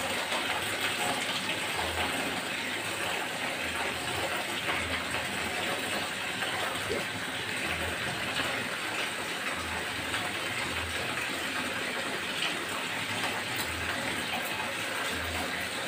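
Steady rain falling, an even hiss that keeps a constant level throughout.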